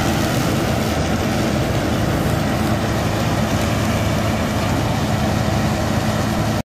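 Claas Lexion 650 combine harvester with a maize header running steadily in a maize field: a constant engine drone over a broad mechanical rush of noise.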